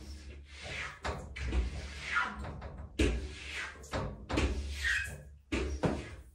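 Rubber squeegee blade pulled in repeated strokes across a wet glass shower screen, each stroke starting with a knock or thump from the glass panel. A few short squeaks from the blade come partway through.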